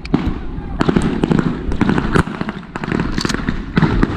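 Scattered blank gunfire from reenactors' rifles, popping irregularly at several shots a second, over a steady low rumble.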